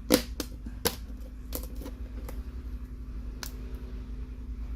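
Half a dozen sharp plastic clicks and taps at irregular intervals, the loudest two within the first second: the mid frame of a Samsung Galaxy A70 being pressed and snapped into place, working up from the bottom.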